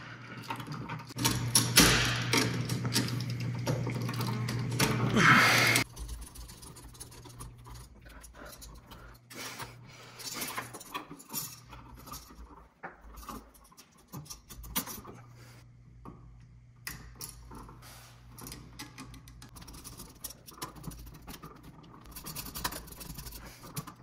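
Hand tools working the wiring of a three-way toggle switch: wire strippers and a screwdriver on copper wire and terminal screws, with scattered small clicks and metal rubbing. The first six seconds are louder, with a steady low hum underneath that cuts off suddenly.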